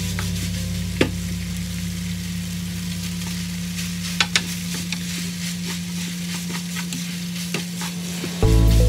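Diced chicken sizzling as it is stir-fried in a frying pan, with a wooden spatula scraping and tapping against the pan a few times, under a steady low hum. Music comes in loudly near the end.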